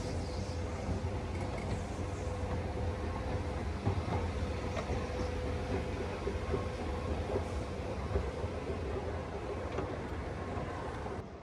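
Escalator running: a steady low mechanical rumble with a faint steady hum, which drops away suddenly at the very end.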